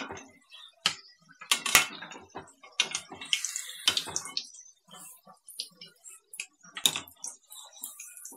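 A maida dough bowl deep-frying in hot oil in a kadhai, a sizzling hiss, broken by irregular sharp clicks and scrapes of a perforated metal skimmer against the pan as the bowl is turned and lifted.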